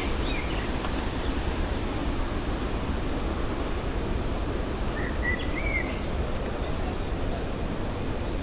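A steady low rushing noise with no rhythm, and a bird chirping a few short notes about five seconds in.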